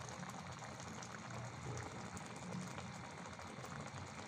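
Thick spinach and red lentil dal bubbling as it simmers in a pan, with frequent small pops.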